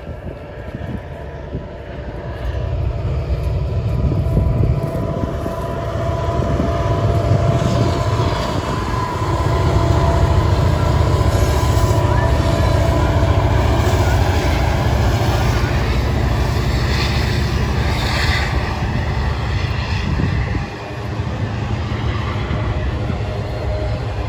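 Diesel freight train passing close by: the locomotive and rolling cars make a deep rumble that builds over the first few seconds and then holds steady as the cars go past.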